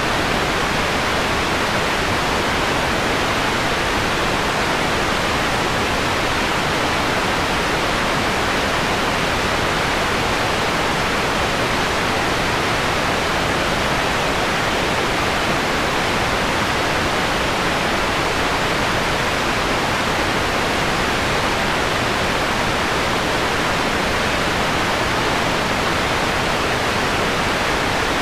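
Steady, even hiss of electronically generated white noise, filtered so the highest frequencies are softened.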